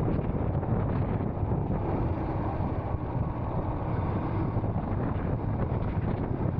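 Royal Enfield Scram 440 motorcycle's single-cylinder engine running steadily while riding, with wind buffeting the microphone.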